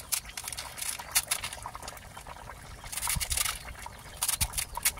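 Knife shaving a head of cabbage into a simmering pan of stew: a crisp, irregular run of crunchy cuts, thicker around three seconds in and again near the end, with the stew bubbling and shreds dropping into the liquid.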